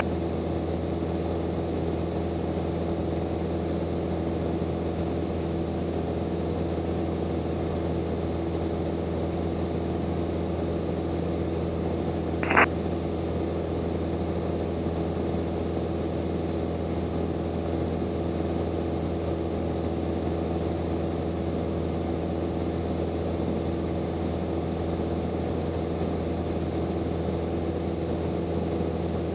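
Grumman AA5B Tiger's Lycoming four-cylinder engine and propeller droning steadily at cruise power, heard from inside the cockpit. A single short blip cuts in briefly about twelve seconds in.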